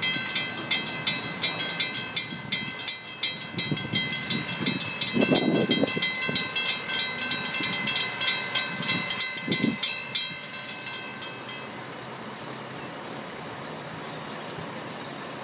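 Railroad grade-crossing warning bell ringing at about three strokes a second, warning of an approaching train. It stops about twelve seconds in. Fainter low sounds swell under it a few seconds in.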